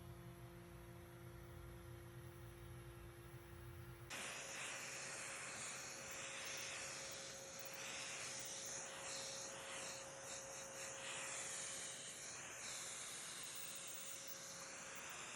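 A low hum gives way, about four seconds in, to an electric woodworking power tool running with a steady hiss. A high whine in it sweeps up and down as the tool works along the wood.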